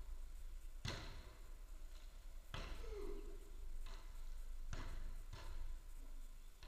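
A footvolley ball struck by players during a rally: five sharp thuds over about five seconds, each echoing in the large hall.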